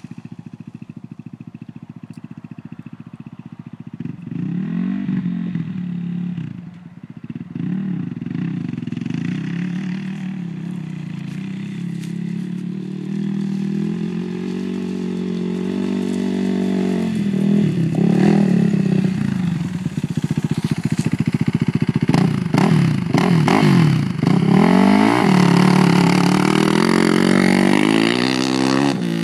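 Suzuki LTR450 quad's single-cylinder four-stroke engine idling steadily, then revved up and down repeatedly from about four seconds in, louder and with quick blips in the second half. The owner reports a weird noise from it under hard acceleration.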